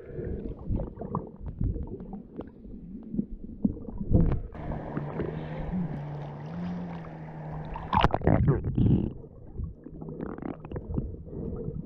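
Muffled underwater rumbling and small knocks as water moves around a snorkeler's camera. About halfway through, the camera is above the surface, where a steady low hum and an airy sea noise are heard. At about eight seconds it plunges back under with a loud splash, and the muffled rumble returns.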